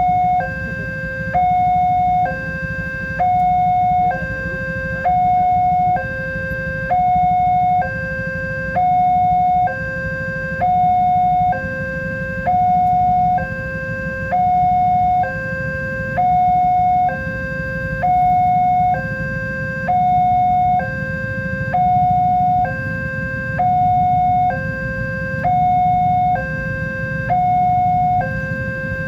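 Railway level crossing warning alarm sounding a two-tone hi-lo signal, switching between a higher and a lower tone about once a second without a break. It signals that a train is approaching and the crossing barriers are closing.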